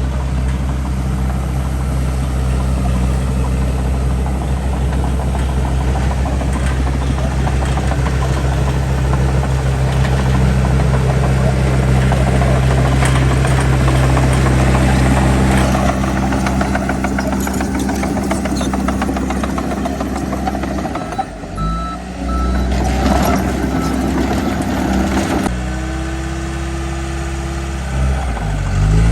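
Heavy diesel earthmoving machinery, a bulldozer and a dump truck, running steadily under load. The engine note dips and comes back about 21 seconds in, and a backup alarm beeps briefly soon after.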